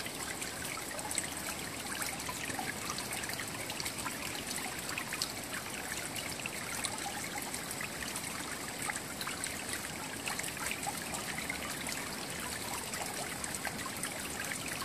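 Steady trickling of running water, with a faint, thin high tone throughout.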